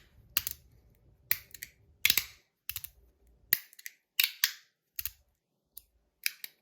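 Stainless steel magnetic fidget slider being slid back and forth. Its strong magnets snap it into place with a sharp click about once a second, some clicks coming in quick pairs.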